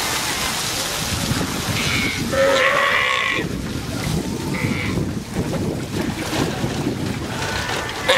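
Sea lions making their burp-like calls: a longer call about two seconds in and a short one a little before the five-second mark, over steady wind noise on the microphone.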